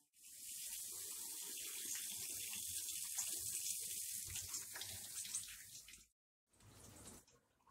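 Water running from a tap into a stone sink and splashing over hands held under the stream as they are rinsed. The sound cuts off suddenly about six seconds in, then comes back more faintly.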